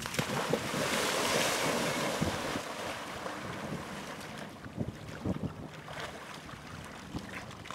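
Water splashing as a person runs through shallow lake water and plunges in, loudest in the first two seconds or so, then quieter splashing as he swims and surfaces.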